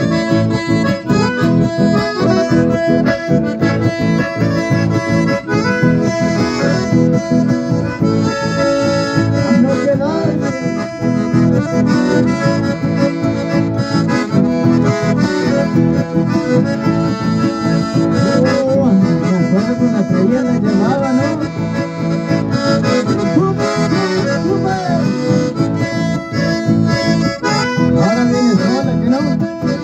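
Two button accordions and an acoustic guitar playing lively folk dance music live, with a steady rhythm.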